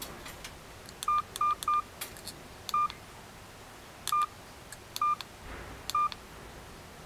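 A touchscreen mobile phone's key-tone beeps as a stylus taps through its menus. There are seven short, identical beeps, each just after a faint tap of the stylus on the screen: three in quick succession about a second in, then four more spaced about a second apart.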